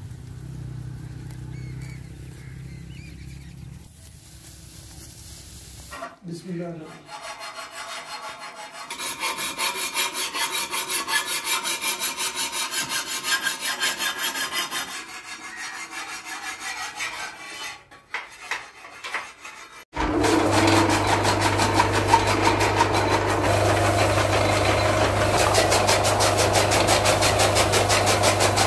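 Electric-motor-driven chaff cutter (fodder chopper) running steadily with a low hum, its blades chopping green fodder as it is fed in. The machine starts suddenly about twenty seconds in. Before that there is a fast, rhythmic rasping scrape at the machine.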